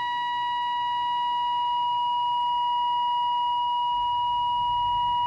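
A Bush VHF90 valve radio's loudspeaker gives a steady single-pitch test tone from a signal generator set to 600, while the oscillator coil is tuned during AM RF alignment. The tone gets slightly louder as the coil is brought up toward peak signal.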